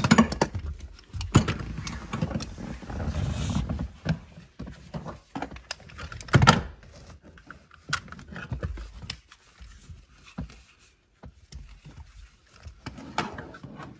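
Schroth Quick Fit racing harness being handled: nylon webbing rustling and sliding, with irregular clicks and knocks from its metal buckles and latch plates, the loudest knock about six and a half seconds in.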